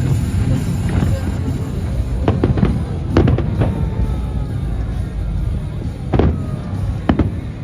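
Fireworks bursting in a string of sharp bangs, the loudest about three and six seconds in, over a heavy metal soundtrack with a dense low rumble.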